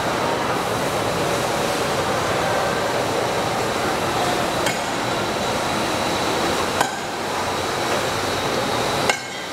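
Multi-colour roll-fed paper cup printing press running: a steady dense machine noise with a faint high whine. A few sharp clicks cut through it, at about five, seven and nine seconds in.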